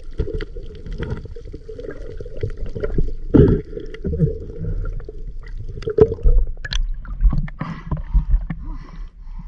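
Muffled water sloshing and gurgling around a camera held in or at the sea surface, with irregular knocks and bumps, the loudest about three and a half and six seconds in.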